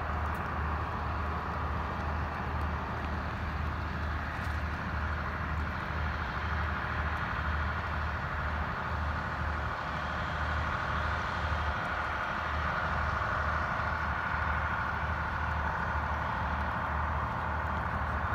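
Steady low drone of a vehicle driving slowly, engine hum and tyre noise running evenly without a break.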